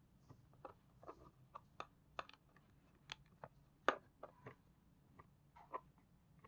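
Handling noise: a string of light, irregular clicks and taps, the sharpest about four seconds in.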